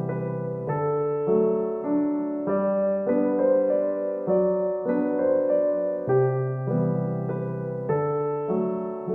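Background music: a gentle solo piano piece playing steady chords over a bass line, the notes changing about every half second.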